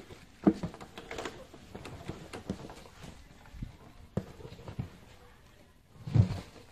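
Scattered knocks and thuds from a baby elephant playing with a hanging rubber tyre that swings and bumps against its body, with a louder low thump about six seconds in.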